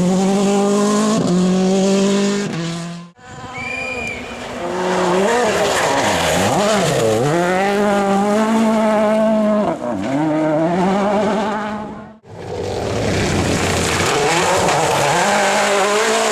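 Rally car engines revving hard, the pitch climbing and dropping with gear changes, lifts and accelerations. The sound is split into three separate passages by abrupt cuts about three seconds in and again about twelve seconds in.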